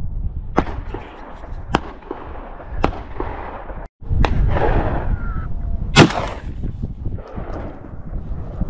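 Gunshots from the boar hunt echoing across a mountain valley: three sharp cracks about a second apart, then a louder shot with a long echo about six seconds in. Wind rumbles on the microphone throughout.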